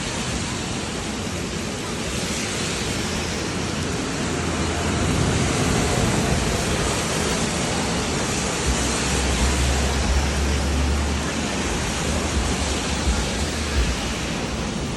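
Heavy rain pouring down steadily, with a low rumble swelling under it for a few seconds partway through.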